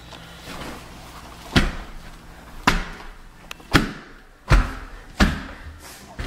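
Six loud, heavy thuds about a second apart.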